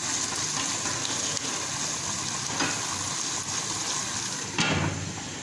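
Chicken pieces sizzling and bubbling in a pot of watery sauce, stirred at first with a silicone spatula: a steady hiss with a light knock about two and a half seconds in and a sharper one near the end.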